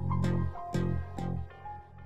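Background music of plucked notes, about two a second.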